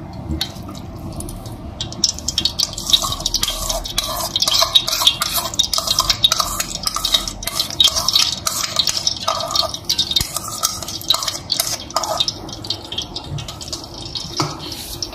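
Milk and ghee poured into a steel cooking pot. From about two seconds in comes a dense, irregular crackle with clinks and scrapes of a metal slotted spoon stirring in the pot.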